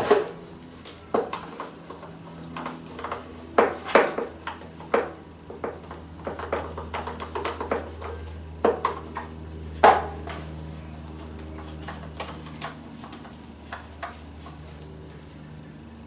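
Irregular clicks, taps and plastic clatter of a welding helmet's lens and cover plate being handled and cleaned, the sharpest knocks about four and ten seconds in, over a steady low hum.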